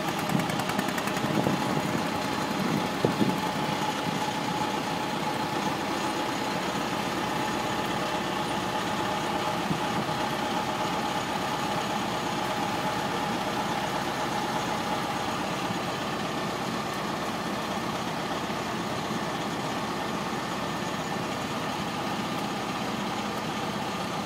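Small motorboat's engine running steadily, heard from aboard the boat, with a few brief knocks in the first few seconds.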